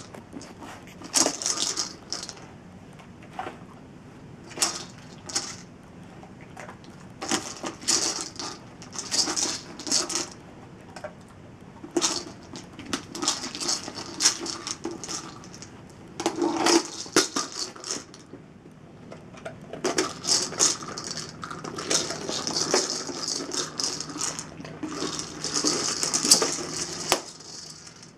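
Dry kibble rattling inside a plastic treat-dispensing ball as a dog noses and rolls it, in irregular bursts with short pauses between.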